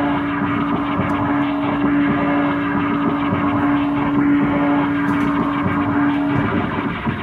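Amplified harsh-noise drone: one loud steady low tone held under a dense, grinding wash of distorted noise. The tone drops out briefly near the end, then comes back.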